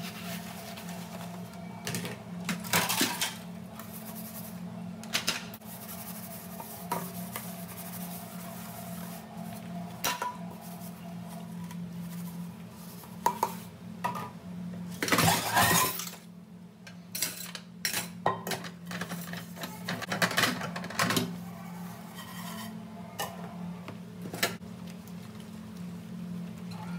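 Dishes, pots and cutlery clinking and clattering in a kitchen sink as they are washed by hand, in scattered knocks with a longer clatter about halfway through, over a steady low hum.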